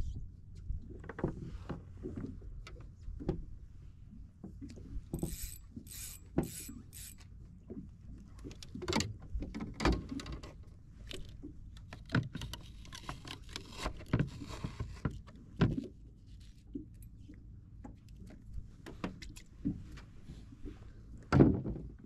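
Handling noise of fishing tackle and plastic gear on a small boat: scattered clicks and knocks over a low steady hum, with four quick scrapes about half a second apart. Midway there is a stretch of rustling as mysid shrimp chum is packed by hand into a plastic chum basket, and a louder knock comes near the end.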